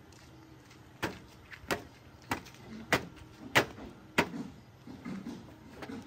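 Footsteps of someone walking in flip-flops: about six sharp slaps at a steady walking pace, from about a second in to just past four seconds.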